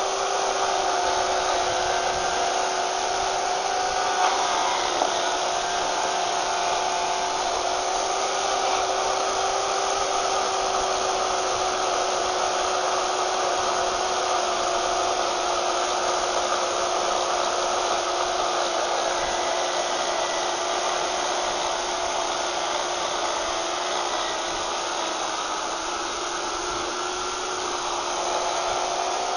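Small 8-amp electric chainsaw with a 14-inch bar cutting through a hardwood railroad tie: a steady motor whine with the chain rasping through the wood. The pitch and loudness dip a little late on and pick up again near the end.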